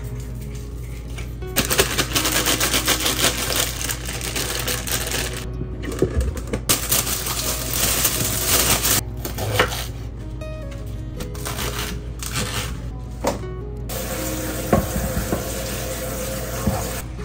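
Plastic bags crinkling and rustling as food is handled in them, in two long stretches during the first half, then lighter scattered handling clicks, over soft background music.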